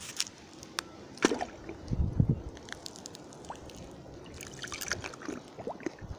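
Pool water sloshing and bubbling as a small toy truck is pushed under the surface by hand, with scattered small clicks and a low thump about two seconds in.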